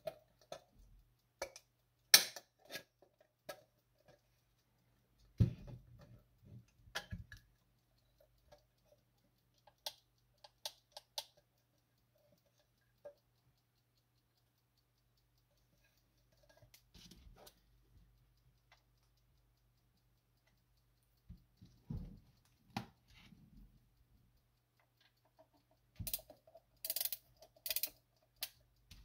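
A Hermle brass ship's clock being handled: scattered clicks and knocks from the brass case and its hinged glass bezel. Near the end, a burst of quick clicks as a key is turned in the winding arbor.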